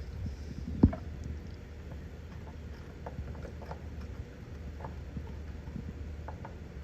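Small clicks and knocks of multimeter probes being handled and put to an air conditioner's run capacitor to measure it, with one sharp knock about a second in, over a steady low hum.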